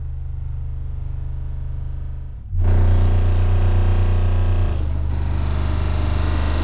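Deep, steady bass rumble from a movie soundtrack played through home-theater subwoofers: first the Paradigm Defiance X15, then, about two and a half seconds in, the louder SVS PB3000. With the PB3000 the room and fireplace vibrate along with the bass.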